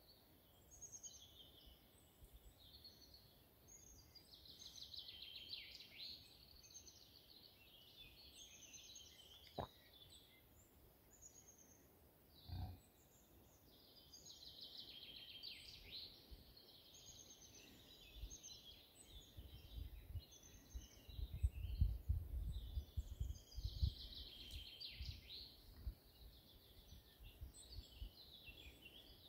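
A songbird singing in repeated phrases, one about every ten seconds. A sharp click and a dull thump come in the middle, and low rumbling bumps, the loudest sound, fill much of the second half.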